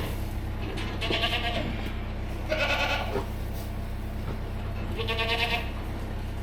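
Goats bleating, three separate quavering calls, over a steady low hum.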